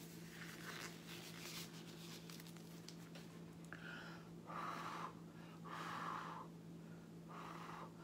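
A person blowing short puffs of breath onto wet acrylic paint on a canvas, three breathy blows of about half a second each in the second half, over a steady low hum; faint rustling comes before them.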